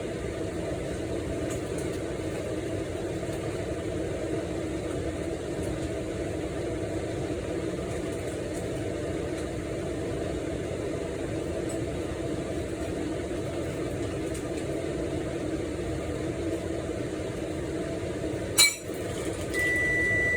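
Steady hum of a kitchen appliance's fan running. Near the end comes a sharp click, then a high electronic beep.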